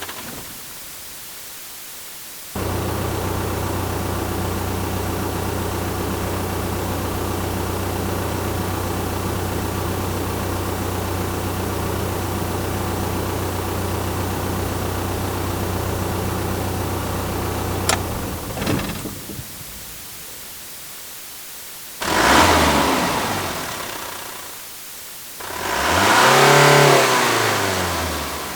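Truck engine samples: an engine starts abruptly and idles steadily for about fifteen seconds, then cuts out with a brief rattle. After a pause, an engine revs sharply and falls away, then rises and falls in pitch in a second rev.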